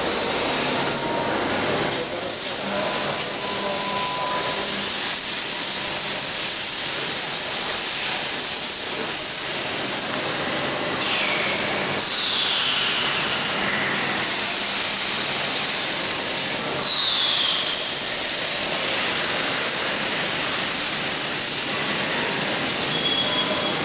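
Steady hiss of industrial machinery, with a few short high squeals that fall in pitch, about halfway through and again some five seconds later.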